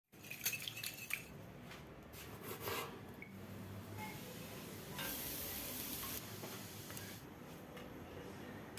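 Cooking in a frying pan: a few clinks and scrapes of utensils against cookware, then about a second of hissing sizzle roughly five seconds in.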